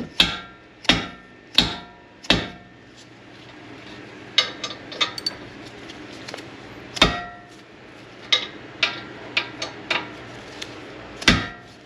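Sharp metallic knocks with a brief ring, about one every 0.7 s for the first couple of seconds, then scattered lighter clicks and a few more knocks near the middle and the end: hand tools working metal on the rear brake caliper bracket and its bolts.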